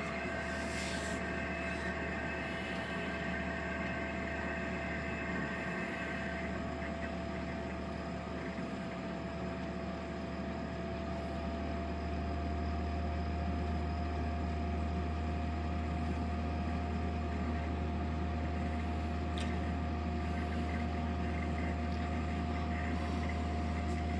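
EENOOR portable air conditioner running in low-energy night mode: a steady low hum from compressor and fan with a thin steady whine over it. The low hum grows louder about halfway through.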